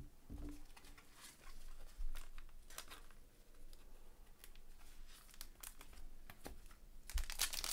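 Soft rustling and light clicks of trading cards and a thin clear plastic card sleeve being handled, with louder plastic crinkling near the end.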